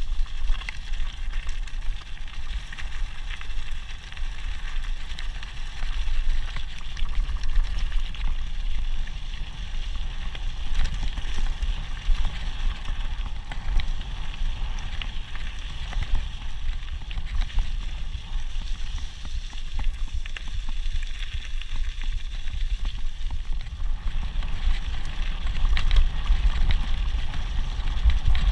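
Mountain bike rolling fast down a loose gravel track: wind buffets the action camera's microphone in a steady low rumble, over the crunch of tyres on stones and small rattles from the bike.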